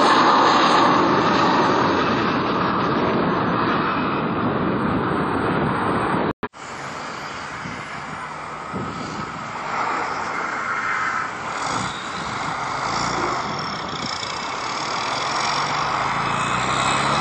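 Jet engines of a rear-engined regional jet climbing out after takeoff, a loud steady rushing noise. After a sudden cut about six seconds in, a twin-engine widebody airliner on final approach, quieter at first and growing louder toward the end as it comes closer.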